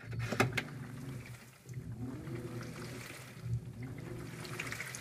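LG top-load washer agitating a large load in shallow water: its motor hums and whines up and then down in pitch with each wash stroke, about every second and a half, over water sloshing and clothes churning. A couple of sharp clicks about half a second in are the loudest moment.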